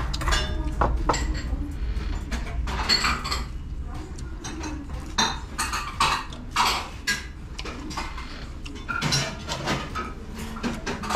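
Tableware clinking at a meal table: spoons and stainless-steel bowls knocking against dishes in short, irregular clinks.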